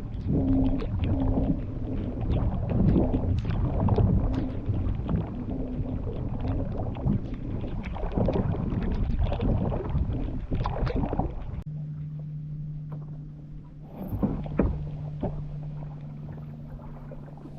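Kayak hull knocking and slapping through choppy water, many uneven splashes and knocks over a rough rushing noise. About two-thirds of the way through this dies down and a steady low hum takes over, with a few more knocks.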